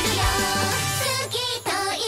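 J-pop anime theme song: female voices singing over a full pop band backing. About halfway through, the bass and drums drop away.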